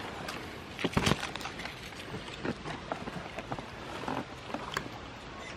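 Goats browsing in a pile of cut branches: twigs rustling and snapping in scattered clicks, with a sharper crack about a second in, over a steady hiss.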